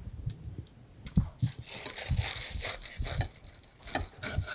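Table knife sawing through the crisp toasted crust of a croque-monsieur on a plate: a crunching, crackling scrape with a few small knocks, starting about a second in.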